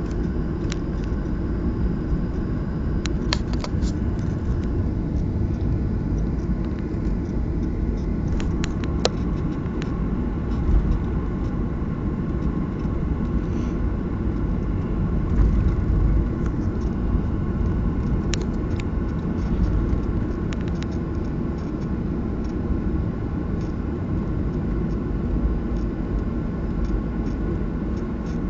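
Cabin noise inside a Boeing 737 on the ground: a steady low rumble of the jet engines and the aircraft rolling, with a few brief clicks and rattles scattered through it.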